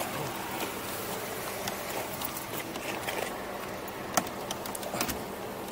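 A steady low hum with a few sharp clicks and knocks scattered through it, the loudest about four seconds in.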